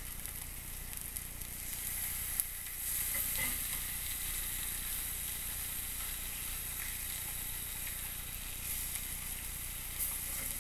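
Marinated steaks sizzling steadily on a hot cast iron grill pan while metal tongs turn them. The sizzle grows louder about three seconds in, and there are a couple of light clicks, one early and one near the end.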